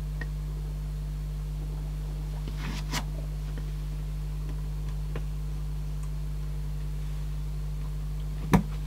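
Faint clicks and handling noises of hands working a cassette deck's tape mechanism, with one sharper click near the end, over a steady low electrical hum.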